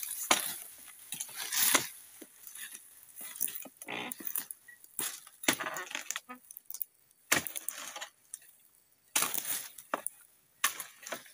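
An oil palm pruning chisel (dodos) on a long wooden pole chopping into the bases of palm fronds. It gives repeated sharp strikes at irregular intervals, some a second or more apart.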